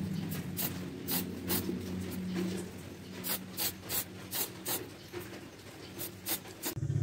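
Aerosol spray-paint can sprayed in about a dozen short, quick hissing puffs, in groups of two to four. A low motor hum lies underneath, and a louder engine drone sets in just at the end.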